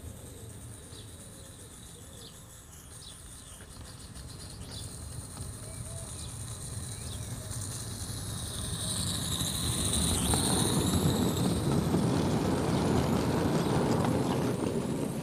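Gauge 1 live-steam Accucraft LSWR B4 tank locomotive and its tank wagons running along the garden track. The running noise grows as the train approaches and is loudest from about ten seconds in as it passes close by.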